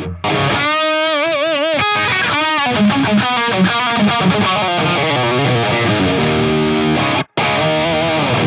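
Electric guitar played through a Tonex One pedal's amp models with a distorted tone. A lead phrase of sustained notes with wide vibrato gives way to a run of notes and chords. It cuts off suddenly about seven seconds in, and another passage starts.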